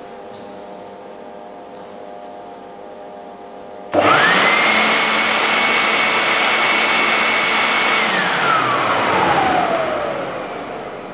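Electric leaf blower-vacuum, switched on by a motion sensor for a timed burst, starts abruptly about four seconds in: a loud rush of air with a motor whine that climbs quickly and holds steady for about four seconds, then cuts out and winds down in a falling whine. Before it starts, a steady hum.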